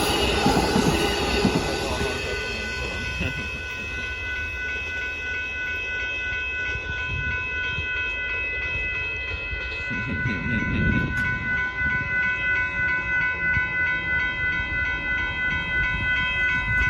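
A passenger train rumbles past on the rails and fades within the first couple of seconds. Then a railroad grade-crossing warning bell rings steadily and cuts off near the end, with a road vehicle rumbling past about ten seconds in.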